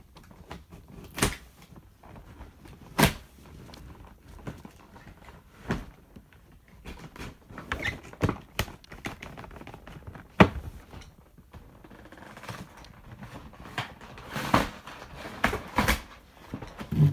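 Handling and opening a boxed action figure's cardboard packaging: scattered knocks, taps and clicks with quieter rustling between, the sharpest knocks about a second in, about three seconds in and about ten seconds in.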